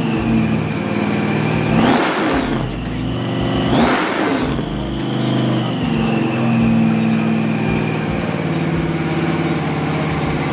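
Car engine running with a steady low rumble, revved up sharply twice, about two seconds apart, each rev rising and dropping back.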